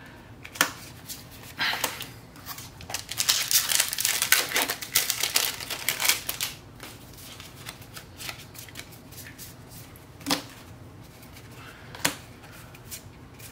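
Magic: The Gathering trading cards being handled: a few sharp clicks as cards are flicked and set down. A foil booster-pack wrapper crinkles and tears open for a few seconds around the middle.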